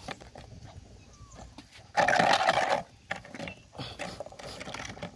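Milk poured from a plastic bottle into a plastic feeding bowl, a continuous splashing pour, with puppies moving around it. A loud, harsh burst lasting under a second comes about two seconds in.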